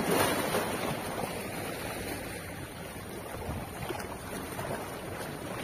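Small sea waves washing and splashing against shoreline rocks, loudest at the start as a wave breaks over them, then a steady wash.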